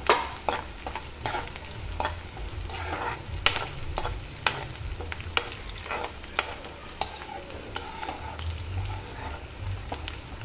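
Steel spoon scraping and knocking against a metal kadai as diced onions and green chillies are stirred while frying in oil, the knocks coming irregularly about once or twice a second over a continuous sizzle.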